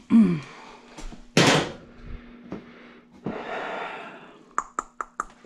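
Hand tools and parts being handled in a car's engine bay during a spark plug change: a short loud rustle, a longer scuffling, then a quick run of about five sharp clicks near the end.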